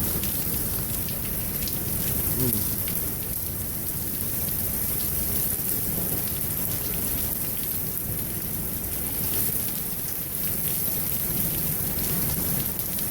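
Heavy thunderstorm rain pouring down steadily and pattering on hard surfaces, with a low rumble of thunder underneath.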